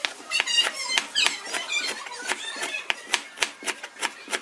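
Knife chopping lemongrass stalks into thin rings on a cutting board, a quick, even rhythm of about three to four chops a second. For the first two and a half seconds high chirping squeaks sound over the chopping.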